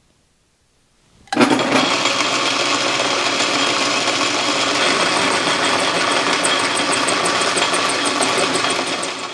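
Metal lathe starting suddenly about a second in and running steadily, with a boring bar cutting the inside of a steel pipe held in the chuck. The sound eases off slightly near the end.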